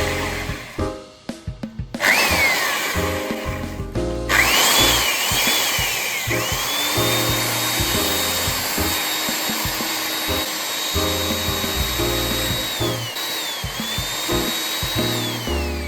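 Power drill boring into a wooden branch over background music. A short burst about two seconds in, then from about four seconds the motor whine rises to speed and holds steady, dipping briefly under load twice before winding down at the end.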